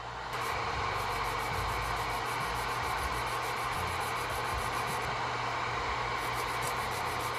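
Airsee GD3 nail dust collector's fan running, a steady rush of air with a low hum underneath, as it draws filing dust through its filter.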